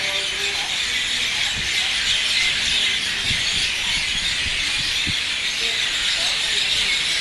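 A large flock of birds calling all at once, a continuous high chattering din with no gaps.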